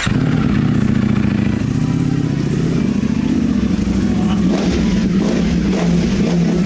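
Ducati Panigale V4 sportbike's V4 engine running at low, steady revs as the bike is ridden slowly at walking pace.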